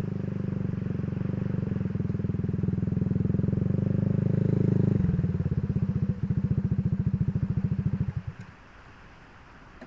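Motorcycle engine running with a steady rapid beat. The beat slows and loosens about five seconds in, and the engine stops about eight seconds in.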